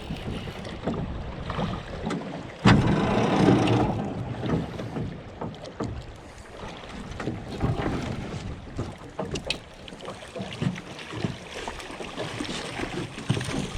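Water moving around a drifting skiff with wind on the microphone, plus small knocks; a sudden louder rush of noise comes nearly three seconds in, as the hooked trout is played beside the boat.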